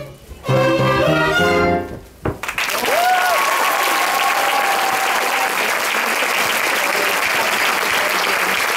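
A school orchestra of violins and clarinet plays its last notes, ending on one short final stroke. About two and a half seconds in, the audience starts applauding, and the clapping stays steady from then on.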